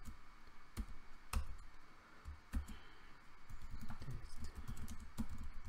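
Typing on a computer keyboard: irregular keystroke clicks, sparser in the middle.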